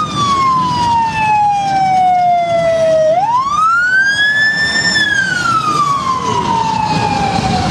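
A siren wailing in one slow cycle. Its pitch falls, sweeps up about three seconds in to a peak near five seconds, then falls slowly again, over low traffic noise.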